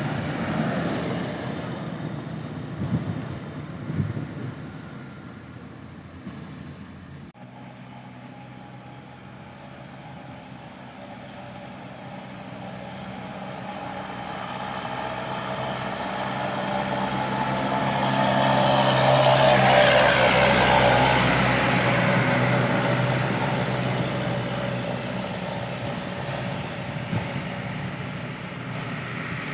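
Heavy truck's diesel engine pulling under load, a steady low drone that grows louder to a peak about two-thirds of the way through and then fades as the truck goes by. In the first few seconds, before a cut, another vehicle's engine with two sharp knocks.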